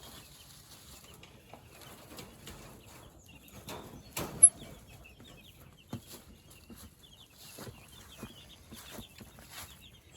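A flock of meat chickens peeping and clucking, many short high peeps, with scattered light clicks and one sharp knock about four and a half seconds in.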